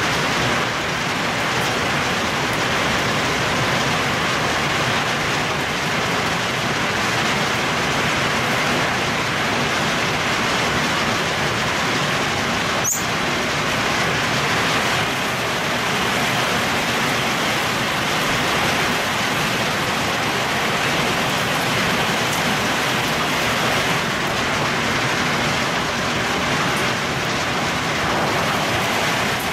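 Heavy rain mixed with hail falling steadily, a dense even hiss, with one sharp click about halfway through.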